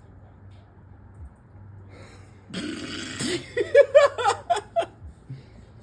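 Loud non-speech vocal sounds from a person: about two and a half seconds in, a breathy blast, then a run of short choppy voiced pulses lasting about a second and a half.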